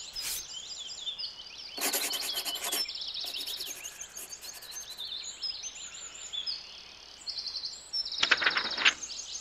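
Small birds chirping and twittering throughout, with two short raspy scratching bursts, one about two seconds in and a louder one near the end.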